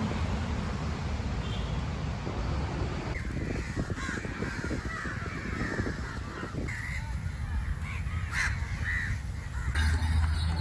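Crows cawing, several short calls from about three seconds in, over a low steady rumble.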